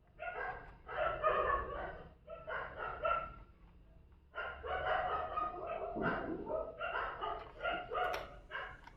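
Several dogs barking in the background, faint, in repeated runs with short pauses between them.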